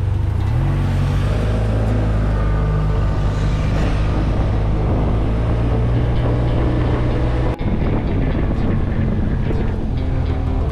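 Motorcycle engine running steadily while riding, with road and wind noise; its pitch rises about half a second in. The sound briefly cuts out about three quarters of the way through.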